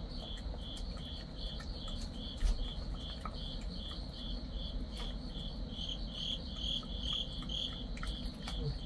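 A cricket chirping steadily, about two short high chirps a second, with faint clicks and one sharper knock about two and a half seconds in.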